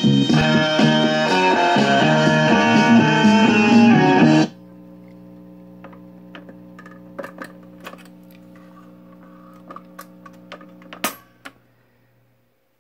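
Guitar music playing from a 45 record on a vintage Zenith tube record player, cut off suddenly about four and a half seconds in as the tone arm is lifted. Then the player's steady low hum with scattered clicks from the tone arm and changer mechanism, and a sharp click near the end after which the hum stops.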